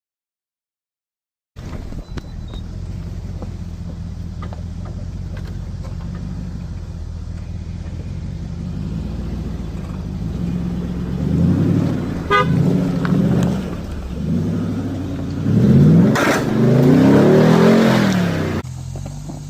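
A truck engine running steadily at low revs while crawling, then revving up and down repeatedly under load as the truck climbs over rocks. There is a sharp knock or scrape a few seconds before the revving dies away.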